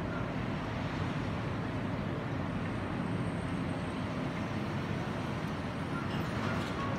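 Steady low engine rumble, the kind made by heavy machinery on a construction site, with a few faint metallic clinks near the end.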